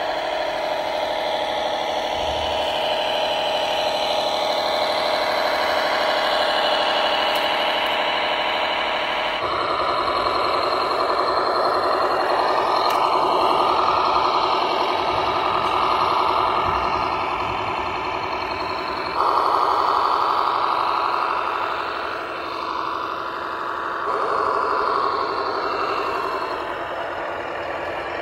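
Radio-controlled model tractors, converted Bruder John Deere 7930 and New Holland models, running with a steady mechanical hum of many tones. The sound changes abruptly about a third of the way in and twice more later.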